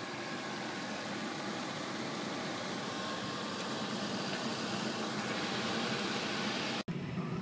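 A steady rushing noise that grows slightly louder and cuts off abruptly near the end.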